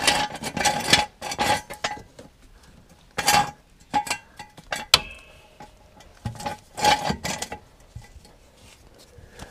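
Steel axle stand being set in place under the car: a series of metallic clanks and clinks with a short ring, in several separate bursts with quiet gaps between.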